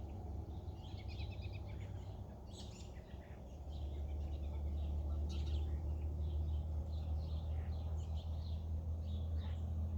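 Birds calling in many short chirps, over a low steady rumble that grows louder about three and a half seconds in.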